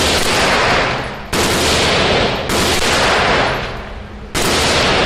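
Aero Precision EPC 9 9mm carbine fired in slow single shots, three about a second apart, each sharp crack trailing off in a long echo off the walls of an indoor range.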